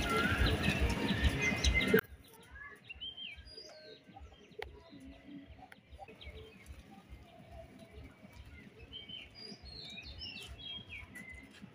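Small birds chirping in short, scattered calls. For the first two seconds a loud rushing noise covers them, then cuts off suddenly.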